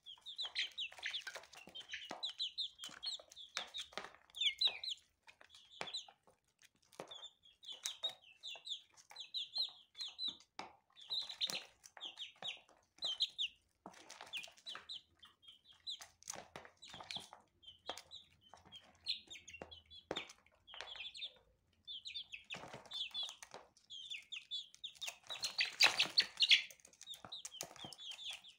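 Young chicks peeping continuously in short, high, rapid calls while pecking at food in a dish, with scattered taps and a louder, busier flurry near the end.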